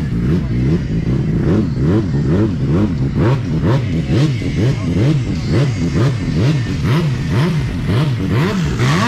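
Motorcycle engine revved again and again, its pitch climbing and dropping about twice a second without a break.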